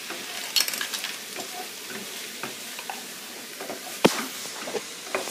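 Chicken gizzard curry sizzling in a frying pan as a wooden spoon stirs it, with the ground cumin just added, with small scrapes and clicks throughout and a sharp knock about four seconds in.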